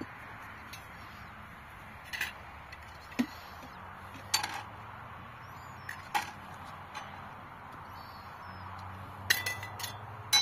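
Dishes and kitchen utensils being handled: scattered sharp clinks and knocks, a quick cluster of them near the end, over a steady background hiss.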